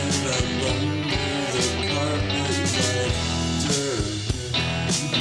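Background rock song with guitar and a steady beat.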